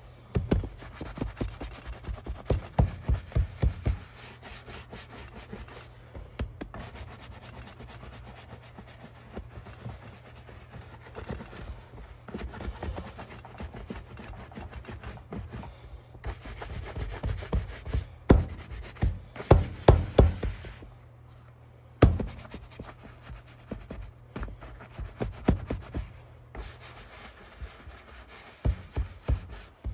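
Stiff shoe brush scrubbing rapidly back and forth over the leather upper of an Irish Setter 83630 work boot, working in mink oil. The strokes come in bursts of several a second with short pauses, and there is a sharp knock about two-thirds of the way through.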